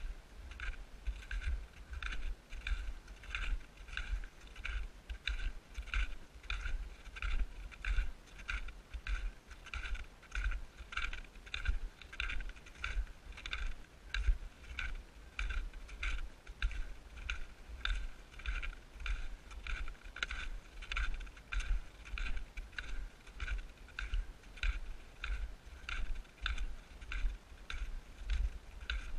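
Footsteps crunching in snow at a steady walking pace, about two steps a second, each crunch with a dull low thump under it.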